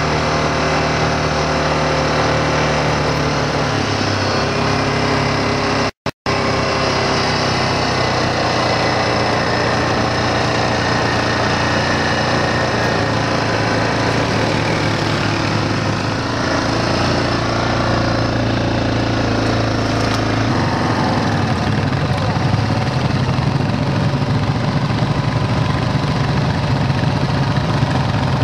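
Quad ATV engine running while riding a dirt trail, its pitch stepping up and down as the throttle changes. The sound cuts out for a moment about six seconds in.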